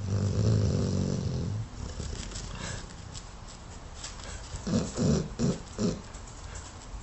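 A sleeping Dogue de Bordeaux snoring hard. One long, loud, low snore comes at the start, and a quick run of four short sounds follows near the end.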